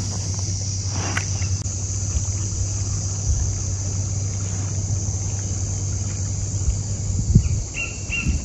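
Steady high-pitched drone of insects, over a constant low hum, with a couple of soft knocks near the end.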